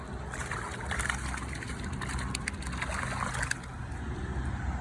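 Water splashing and sloshing at the water's edge as a caught fish is put back in, with scattered small splashes and a steady low rumble underneath.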